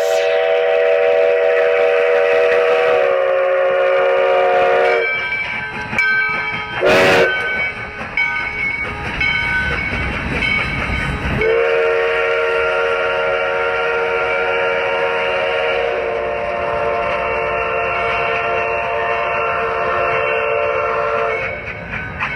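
Multi-note steam chime whistle of a 4-6-2 Pacific steam locomotive blowing two long blasts, the first dropping a little in pitch as the engine passes, with a short loud sound about seven seconds in. Under the whistle runs the steady rumble of the passing train on the rails.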